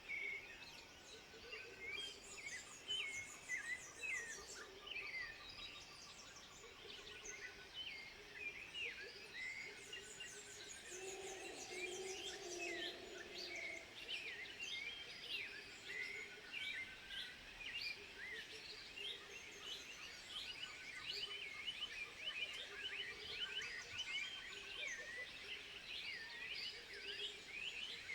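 A dense chorus of high chirps and twitters from forest animals, many short calls overlapping, with a steady pulsing trill underneath. A lower, longer call stands out about halfway through.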